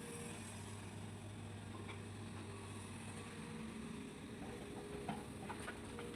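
Hitachi hydraulic excavator's diesel engine running with a steady low drone, with a few light clicks near the end.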